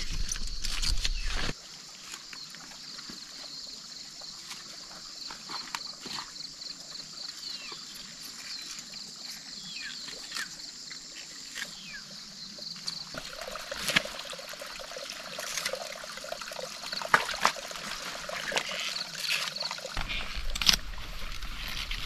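Outdoor field ambience: insects shrilling steadily, with scattered knocks and scrapes of a long knife chopping and cutting taro plants.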